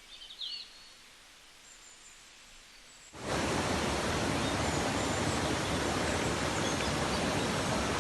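A bird chirps briefly over faint outdoor background. About three seconds in, the sound switches abruptly to the loud, steady rush of a waterfall.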